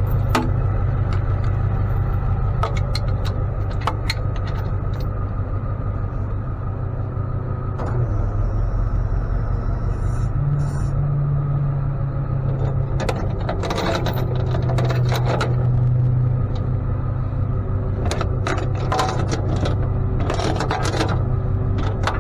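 A vehicle engine idling steadily, its pitch stepping up and back down around the middle, with bursts of metal clanks and rattles in the second half.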